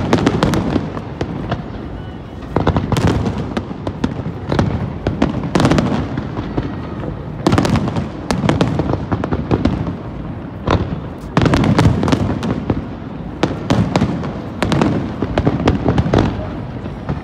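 Aerial fireworks display: volleys of shells bursting in quick clusters of bangs with crackling between them, coming in waves every second or two.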